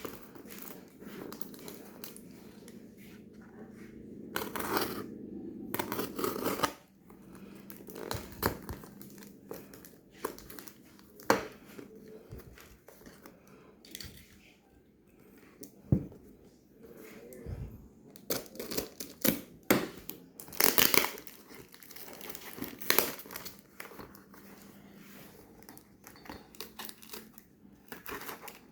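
Packaging being unboxed by hand: irregular crinkling, rustling and tearing of cardboard and plastic wrap, with scattered sharp clicks and knocks.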